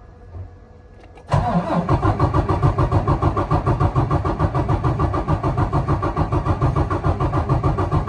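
Detroit DD15 inline-six diesel in a Freightliner Cascadia cranking on its starter without firing, a steady rhythmic chugging that starts about a second in and stops near the end. The engine is being turned over with fuelling off for a relative compression test, which is reading the cylinders' compression.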